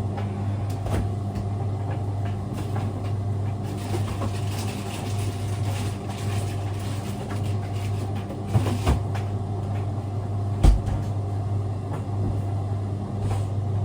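Steady low electrical hum of a running kitchen appliance, with a few knocks and clatters of kitchen handling, the loudest about two thirds of the way through.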